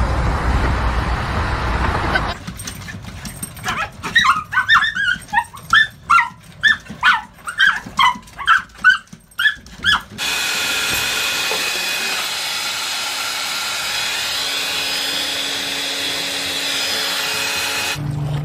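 Small dogs barking in high, sharp yips, about two a second for some six seconds, ending abruptly. Before them, steady road noise from inside a moving car; after them, a steady hiss with faint held tones.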